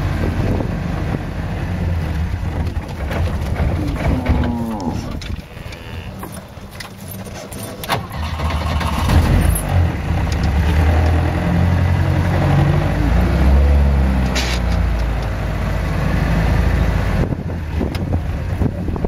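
A vehicle's engine runs at low speed, with a steady low rumble. A cow moos about four seconds in, and more lowing comes later, over the top of it. A couple of sharp knocks come from the vehicle bumping along.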